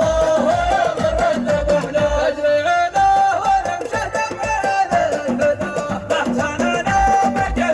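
Shaylah, a Gulf Arabic chanted song: a sung melody moving in steps over a low, even beat. The beat drops out for a few seconds in the middle and comes back near the end.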